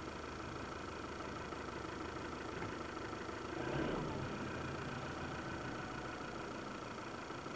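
Toyota Innova Reborn's four-cylinder turbodiesel idling steadily just after a start, heard from inside the cabin, with a brief swell about four seconds in.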